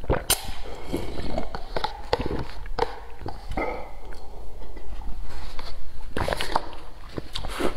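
Close-up eating and drinking sounds: a person drinks from a paper cup, then chews, with many irregular wet mouth clicks and smacks.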